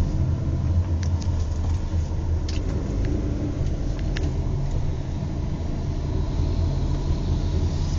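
Steady low rumble of a car driving, with a handful of short, sharp ticks in the first half.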